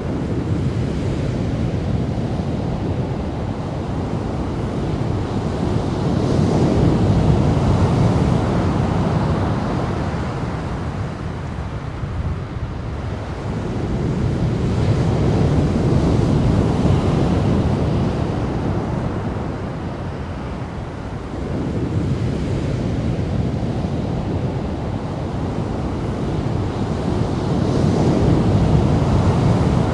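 Ocean surf breaking, a steady rush of whitewater that swells three times and eases between, with wind buffeting the microphone.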